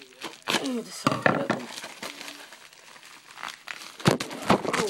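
Packaging crinkling and crackling as hands work at opening a thick parcel, with louder rustles about half a second in, at about a second, and again near four seconds.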